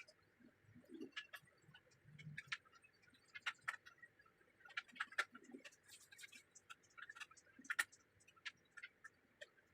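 Faint, irregular small clicks and taps, with a few soft thuds, of hands handling small parts and tools during a projector repair.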